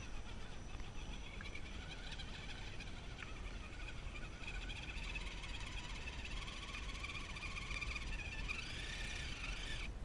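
Electric motor and gearbox whine of an Axial SCX10 Deadbolt RC crawler working under load as it climbs a muddy gravel slope. The pitch rises about eight and a half seconds in as the throttle comes up.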